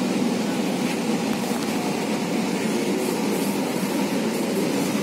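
Steady running noise of a Kochi Metro train, heard from inside the carriage as it travels along the elevated track.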